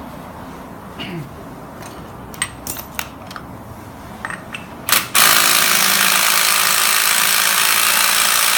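Light metallic clinks and taps of tools and parts being handled. About five seconds in, a loud power tool, probably air-driven, starts abruptly and runs steadily with a hissing, rattling noise.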